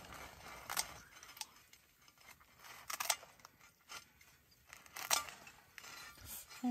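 Kitchen scissors cutting through a crisp pizza crust on a metal griddle: several separate crunching snips with light metal clicks of the blades.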